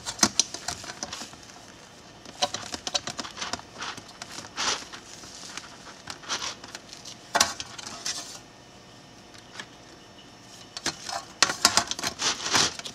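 Back panel of a 12-inch touchscreen monitor being handled and fitted back into place: irregular clicks, knocks and rattles in scattered clusters, busiest in the last couple of seconds.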